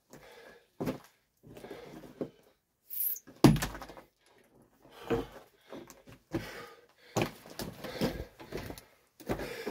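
Irregular knocks and crunches of stones on loose rock rubble. About three and a half seconds in there is one heavy, deep thud, the loudest sound, as dust puffs up at the foot of the rock face.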